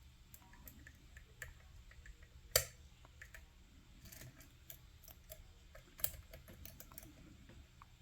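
Faint, scattered metallic clicks and ticks of a lock pick working the pins inside an Assa 700 pin tumbler lock, with a sharper click about two and a half seconds in and another about six seconds in. The pins are being float-picked against the core's counter milling while an Allen wrench holds the tension.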